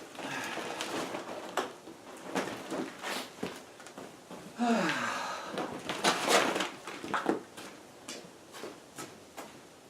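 A large garage floor containment mat being unrolled and shifted by hand on a concrete floor: rustling and scraping with scattered knocks, loudest in a couple of bursts near the middle, with a brief falling squeak.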